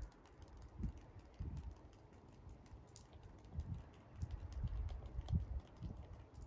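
Footsteps on a gravel path: a few soft, irregular thuds with faint small crunching clicks of the stones.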